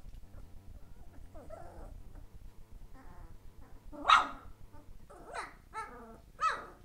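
Three-week-old puppies giving small high-pitched barks and whines: a faint whine about a second and a half in, a louder bark at about four seconds, then several shorter yips near the end.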